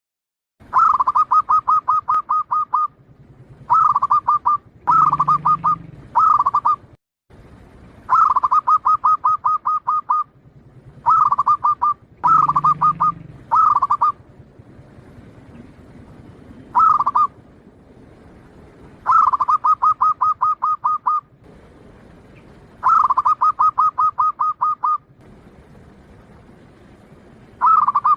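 Zebra dove (perkutut) singing: repeated phrases of rapid, evenly spaced cooing notes at a steady pitch, each phrase about one to two seconds long with pauses between them.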